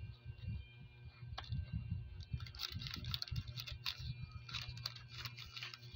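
Crackling and clicking from a pepperoni pizza slice being pulled apart and handled on its paper liner, over a low rumble. The clicks grow quick and busy about two seconds in.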